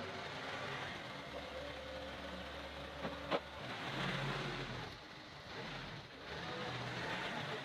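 John Deere compact tractor's diesel engine running as the tractor moves about, with one sharp click about three seconds in.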